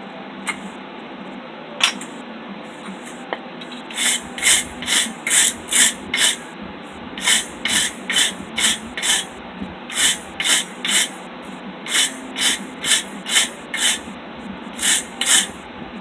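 Wire brush scrubbed back and forth across hot forged steel to knock off the forge scale: short scraping strokes, about two a second, in several runs with brief pauses, starting about four seconds in.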